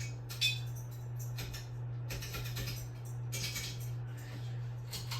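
A steady low electrical hum, with scattered short rustling and handling noises about every second.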